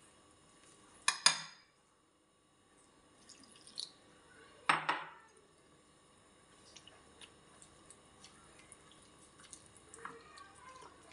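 Steel spoon stirring flour and water into a batter in a bowl: faint scraping and small clicks, with two louder knocks of the spoon against the bowl, one about a second in and one near five seconds.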